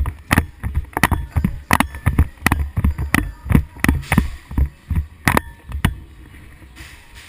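A quick, irregular run of sharp knocks and thuds, about two or three a second, dying away about six seconds in.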